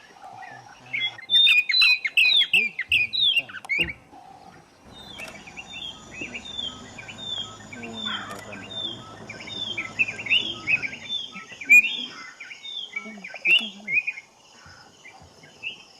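Birds chirping: a quick flurry of loud short calls, then a steady run of repeated falling chirps, about two a second, for most of the rest.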